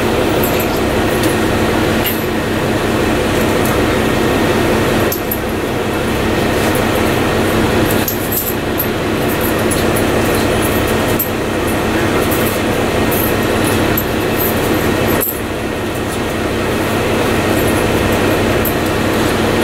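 Cabin running noise of a 1998 Mitsubishi Fuso Aero Midi MK (KC-MK219JVF) one-step city bus under way: a steady engine drone and road noise, with small clinks and rattles from the interior. The level dips briefly a couple of times.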